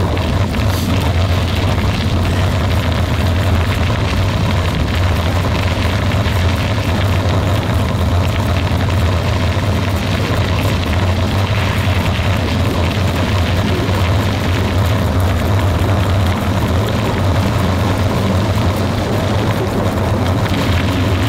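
Vehicle driving steadily along a gravel road: a constant low engine drone with a haze of road noise, unchanging throughout.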